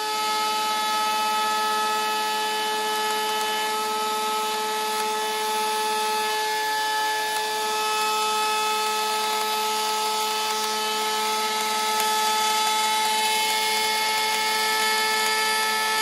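Router table's high-speed motor running steadily with a high whine while a wooden handle blank is fed past the bit.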